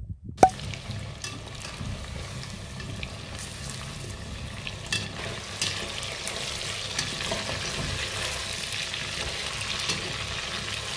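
Oil sizzling steadily as battered chicken pieces deep-fry in a metal pot over a wood fire, with scattered pops and crackles. A single sharp click about half a second in.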